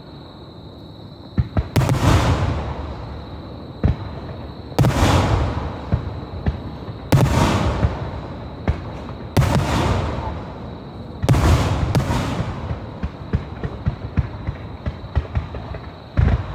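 Fireworks display: aerial shells bursting with deep booms every couple of seconds, each trailing off in a long rumbling echo. Near the end comes a run of rapid crackling, then one more boom.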